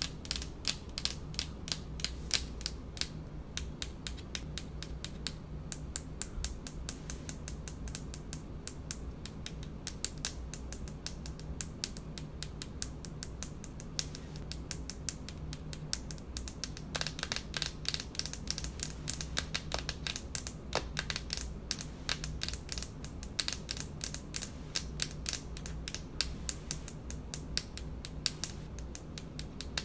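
Long fingernails tapping rapidly on a speckled stone-look countertop, a quick, continuous patter of sharp clicks over a low steady hum.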